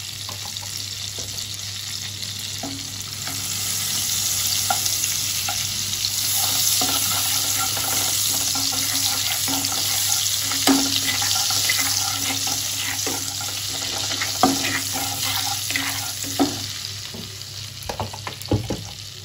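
Butter melting and sizzling in hot oil in a nonstick kadai, stirred with a spatula. The sizzle swells a few seconds in as the butter foams and eases near the end, with occasional taps and scrapes of the spatula on the pan.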